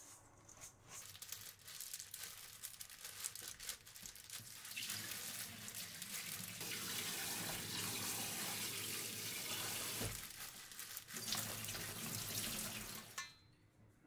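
Water running from a kitchen tap in a steady rush that stops suddenly near the end as the tap is shut off; a few light clicks and scrapes before it.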